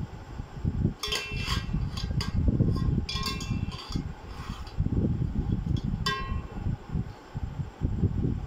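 A metal skimmer clinking and scraping against a stainless steel pot, a few ringing clinks about one, two and three seconds in and a clearer single clink around six seconds, over a low rumbling noise.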